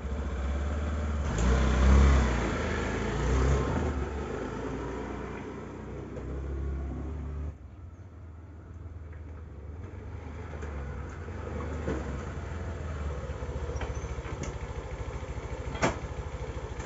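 Honda Activa 6G scooter's single-cylinder engine starting, revved up twice, then dropping suddenly to a steady idle.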